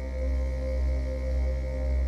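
Ambient background music: a steady low drone under a held mid-pitched tone, swelling gently in loudness.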